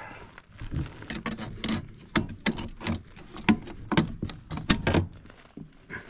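Irregular sharp clicks and taps of an HVAC control circuit board being worked and popped off its plastic standoffs by hand and tool, with the loudest snaps in the middle.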